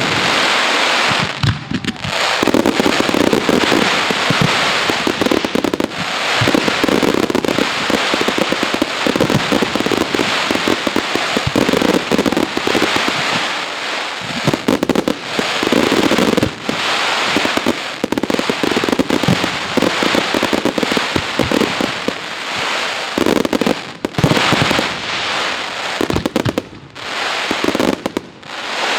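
Fireworks display: a dense, rapid stream of bangs and crackling from many shells going off almost without a break, with a few brief lulls along the way.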